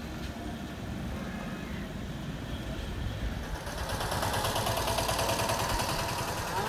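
Street traffic: a steady low rumble of vehicle engines, growing louder with an added hiss from about halfway through as a vehicle comes close.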